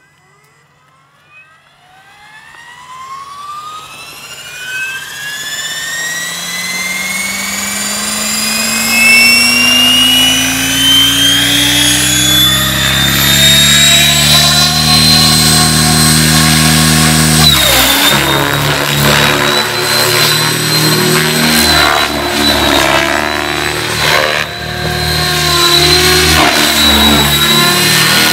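Mikado Logo 600 electric RC helicopter with a Scorpion brushless motor and Edge 623 mm rotor blades spooling up: a whine climbs steadily in pitch over about fourteen seconds to flying head speed. From about eighteen seconds in it is in flight, the motor whine and blade noise rising and falling as it flies.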